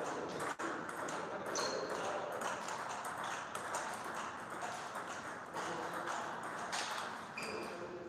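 Table tennis rally: the ball clicking off the rackets and bouncing on the table in quick, irregular succession, in a large hall.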